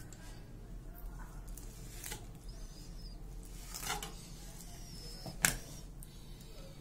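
Long kitchen knife cutting a fresh mackerel into fillets on a wooden cutting board: faint slicing and scraping of the blade through the flesh, with a soft knock about four seconds in and a sharp click near the end as the knife meets the board.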